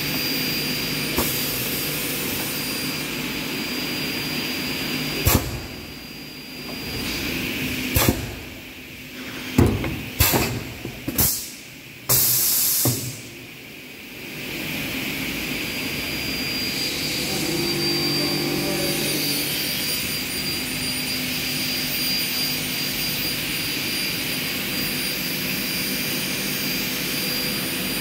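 Aluminium corner crimping press running with a steady hum. Between about five and thirteen seconds in, a series of sharp clunks and knocks comes as the ram and crimping knives close on the stacked profile corners, followed by a short burst of hiss. The steady machine hum then carries on.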